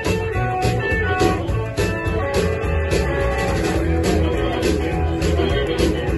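Live blues band playing an instrumental passage: electric guitar and harmonica over plucked upright double bass and a steady drum beat.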